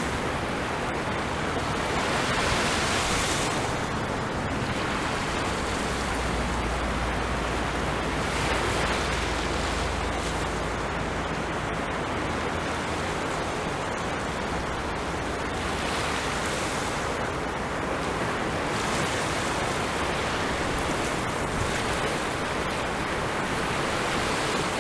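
Sea waves breaking and washing on a shore: a continuous surf hiss that swells every several seconds as waves break.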